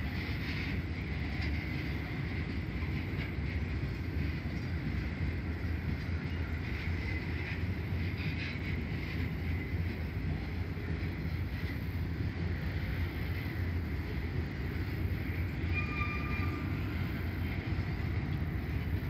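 Union Pacific freight train of covered hopper cars and boxcars pulling away past the tracks: a steady rumble of wheels on rail, with a brief high tone about three-quarters of the way through.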